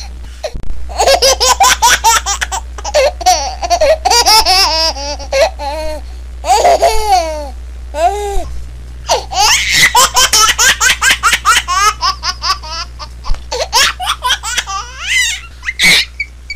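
A baby laughing in several fits of quick, high-pitched giggles and squeals, with a steady low hum underneath.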